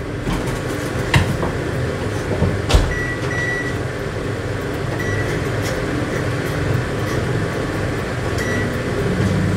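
Countertop oven being loaded and set: two knocks as the foil-wrapped onions go in and the door shuts, then a few short electronic beeps from the control panel as it is programmed, over a steady hum. Near the end a deeper hum sets in as the oven starts running.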